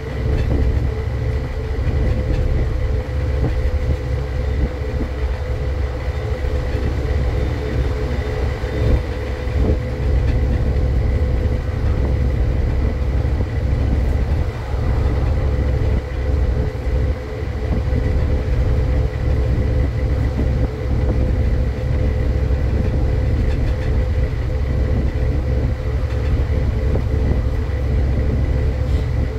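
Scania N230 bus's five-cylinder diesel engine running as the bus drives, a steady low drone with a steady whine over it and scattered rattles.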